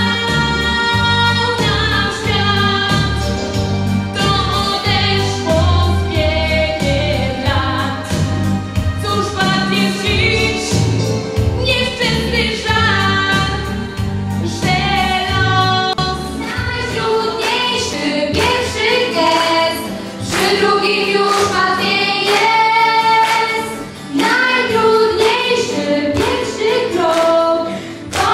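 A girl singing a song into a microphone over instrumental backing, heard through the hall's sound system. The low bass of the backing drops away about two-thirds of the way through.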